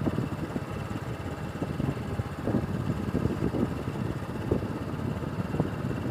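Low, uneven rumble of wind buffeting the microphone, with a few faint knocks.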